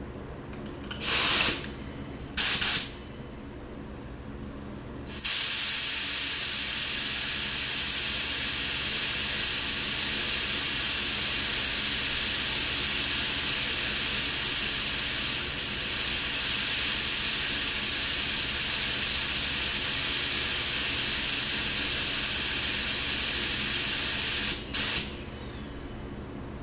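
Gravity-feed paint spray gun hissing as its trigger is pulled: two short bursts of air, then a long steady hiss lasting about twenty seconds that cuts off, then one more short burst.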